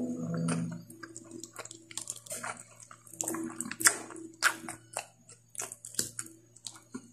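Close-miked wet eating sounds of spicy pork curry with rice: chewing, lip smacks and a quick run of sharp, wet clicks. The loudest click comes a little after the middle.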